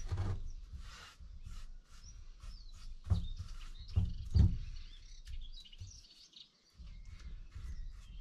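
A paintbrush scrubbing over a plastic jerrycan in short scratchy strokes, with a few dull knocks about three and four seconds in. Small birds chirp in the background.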